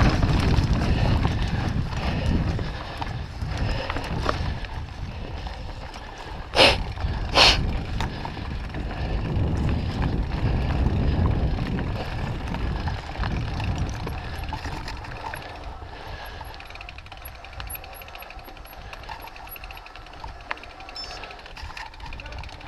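Mooto-X RSL mountain bike rattling and rumbling over a rough dirt trail on a descent, with wind on the microphone. Two sharp knocks come about seven seconds in, and the ride noise grows quieter in the second half.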